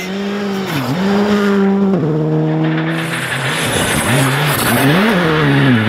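Skoda Fabia R5 rally car's 1.6-litre turbocharged four-cylinder engine driven hard. The revs dip sharply about a second in and again near the end, and step down with a gear change about two seconds in.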